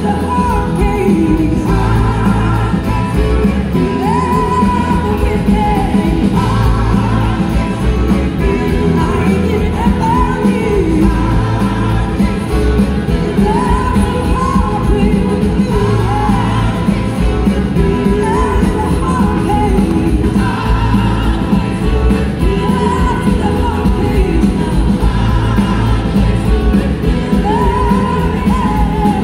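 Live soul-blues rock band playing a song with a woman singing lead. Electric guitars, two drum kits, keyboards and a horn section of saxophone, trumpet and trombone back her, heard from among the audience in a large hall.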